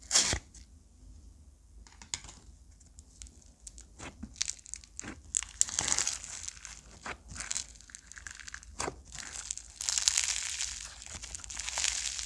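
Slime being squished, pressed and stretched by hand, with scattered sharp pops and snaps at first, then denser crackly handling sounds from about four seconds in, loudest near ten seconds.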